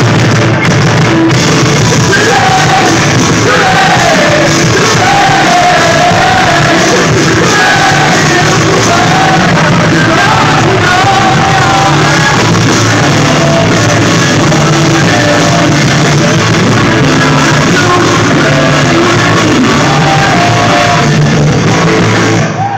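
Live rock band playing a song, a singer's voice over guitars, bass and drums, picked up very loud on a phone's microphone among the audience.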